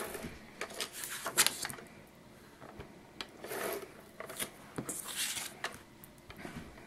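Scotch Advanced Tape Glider (ATG tape gun) dragged along the edges of white cardstock, laying down adhesive: several short zipping, rasping strokes, with a sharp click about one and a half seconds in.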